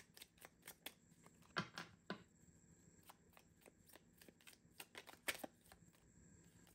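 Tarot cards being shuffled by hand: faint, irregular soft clicks and flicks of card against card, with a few louder snaps now and then.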